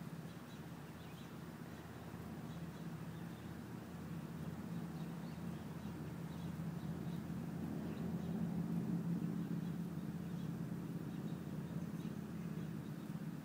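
Low rumble of a distant vehicle that grows louder, peaks a little past the middle and then eases off, with faint bird chirps above it.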